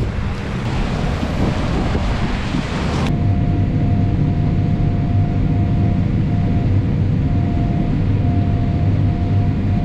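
Wind buffeting the microphone for about three seconds, then cutting off suddenly. After that comes the steady low running of a combine harvester's engine, with a faint mid-pitched tone that keeps coming and going.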